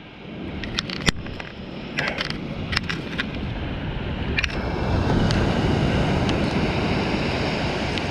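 Metal fishing pliers clicking against a lure as the hook is worked out of a fish's mouth: a few sharp clicks in the first half. Steady surf and wind noise underneath, growing louder about halfway through.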